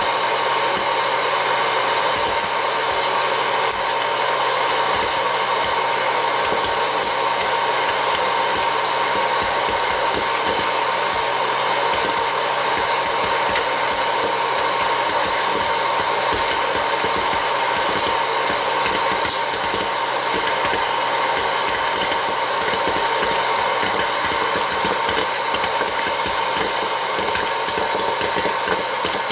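Vintage Wear-Ever Popcorn Pumper hot air popper running: its fan and heater blow steadily with a constant whine, while popcorn kernels pop and rattle in the chamber as many sharp clicks.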